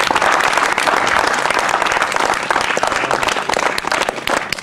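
A small group of people applauding, a dense patter of hand claps that thins out near the end.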